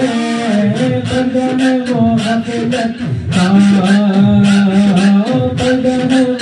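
A man singing a Sufi devotional song in long held notes, over a steady percussive beat.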